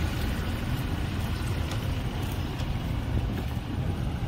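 Steady low rumble of street traffic, motor vehicles running and passing.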